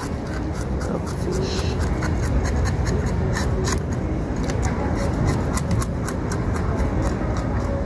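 Knife blade scraping the fine scales off a jack fish in quick, repeated short strokes, over a steady low rumble.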